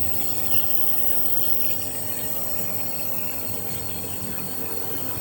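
Nebulizer compressor running steadily: an even motor hum with held tones over a hiss.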